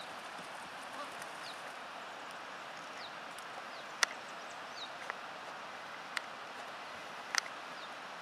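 Horse in harness walking while pulling a two-wheeled cart over sand: a few sharp clicks roughly a second apart over a steady outdoor hiss, with short falling bird chirps scattered through.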